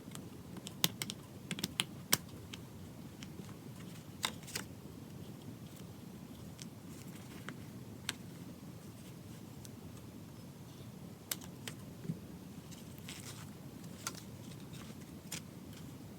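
Scattered small clicks and taps with a little rustling, from hands handling a small notebook and its packaging, over a steady low room hum. A quick cluster of taps comes about a second in, and single clicks follow every few seconds.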